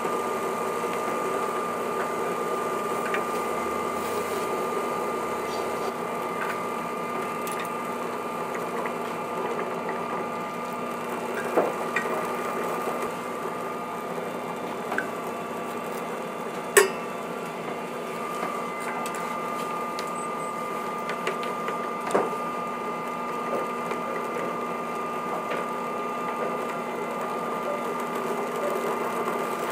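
Induction hob humming steadily with a high whine under a stainless pot of boiling water. Three sharp knocks stand out, the loudest a little past halfway, as a metal tray touches the pot while ingredients go in.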